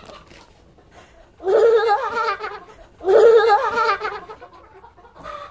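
A girl's two high-pitched, warbling cackles, each about a second long, sounding like a chicken.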